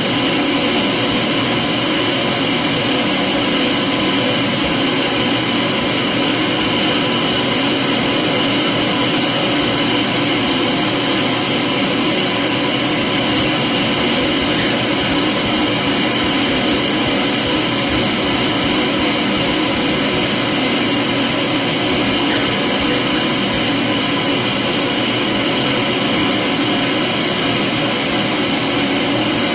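Vacuum cleaner running steadily, a constant whining motor with the rush of air.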